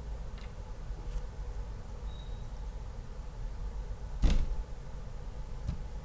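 Small plastic parts and tools being handled on a workbench: a few faint clicks, then one sharper knock about four seconds in and a lighter one near the end, over a low steady hum.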